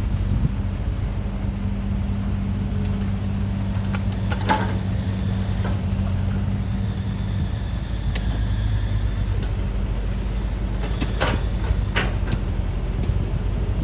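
Excavator's diesel engine running steadily under work, with a few sharp metallic knocks and clanks: one about four and a half seconds in, and a cluster near the end.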